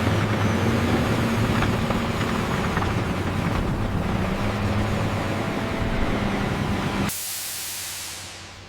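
Heavy diesel engine running with a steady low hum. About seven seconds in it gives way abruptly to a loud hiss of escaping air that fades out.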